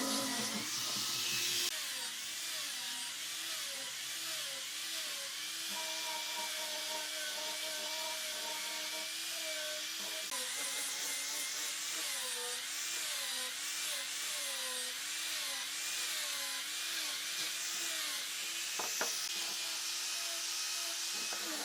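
A power tool running on wood, its motor pitch wavering up and down about once a second as the load changes. There is a sharp click near the end.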